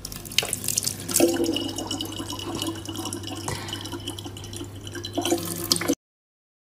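A thin stream of water running from a tap into a plastic water bottle, splashing steadily. It cuts off suddenly near the end.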